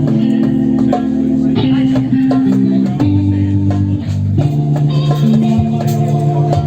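Psytrance music played live: held bass and chord notes that shift every second or so, with fast ticking percussion over them.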